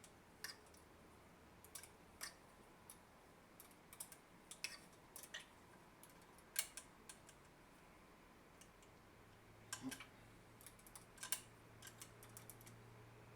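Faint, irregular metallic clicks and taps of tools and parts being handled while screws are tightened on a drill press, with a couple of louder clicks about six and eleven seconds in.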